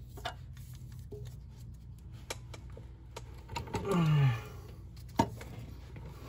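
Scattered clicks and metal knocks from a ratchet and flange holding bar working the transmission output flange nut. There is a falling grunt of effort about four seconds in, and a sharp knock just after five seconds.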